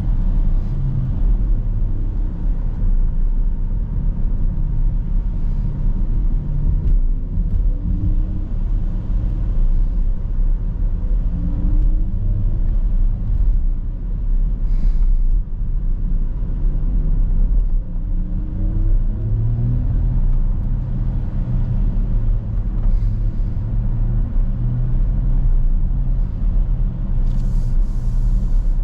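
Porsche Macan 4 Electric driving: a steady low rumble of road and tyre noise, with a faint whine from its electric drive that rises in pitch several times as the car picks up speed.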